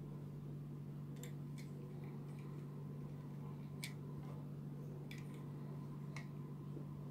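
Plastic joints of a Papa Toys PPT-02 Fire Engine transforming robot figure click about five times, at irregular moments, as its arm is moved by hand. A steady low hum runs underneath.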